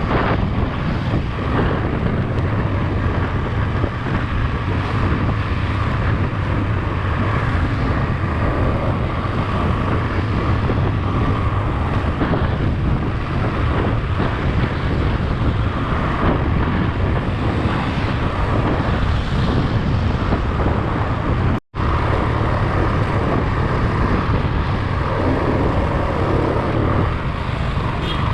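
Motorcycle on the move: steady wind rush on the microphone over the engine's low drone. It cuts out for a split second about three-quarters of the way through, then carries on.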